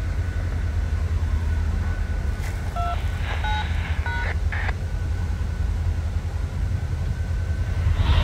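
Low, steady rumble of an idling diesel locomotive. About three seconds in come three short touch-tone (DTMF) beeps in quick succession, with a couple of brief clicks around them.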